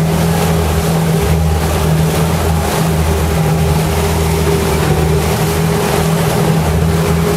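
Motorboat engine running steadily under way with a low, even hum, over the rush of water from the boat's wake.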